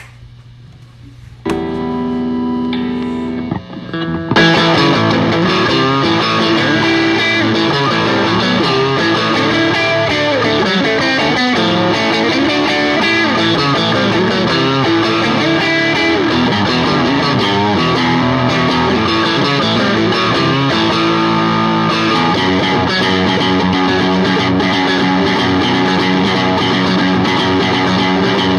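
Electric guitar, a Telecaster through an overdriven amp, playing a rock phrase. A chord rings out about a second and a half in, then from about four seconds in the guitar plays continuously in a mix of chords and single-note runs.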